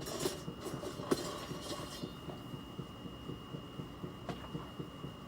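Low throbbing hum with a thin, steady high whine over it and a couple of soft clicks, about a second in and again near the end. It is the kind of annoying background drone that is blamed on the water heater, though the source is not confirmed.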